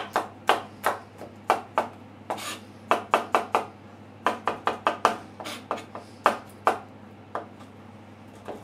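Kitchen knife chopping cooked broccoli and its stems on a white plastic cutting board: sharp knocks of the blade on the board, in short quick runs with brief pauses between.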